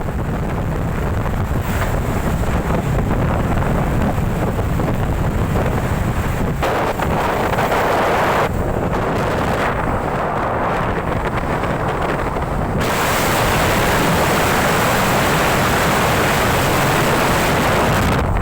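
Wind buffeting the microphone over rushing river water, a steady loud rumble and hiss that grows brighter and louder about thirteen seconds in.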